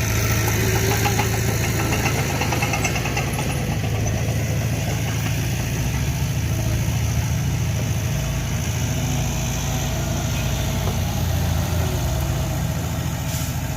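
Heavy-equipment diesel engine running steadily with a deep, even drone.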